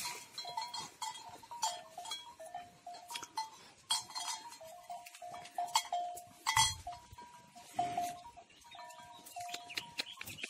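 A bell on a mithun's neck clanking irregularly as the animal moves and feeds, each stroke a short ringing note at the same two pitches. Crackling of dry brush comes between the strokes.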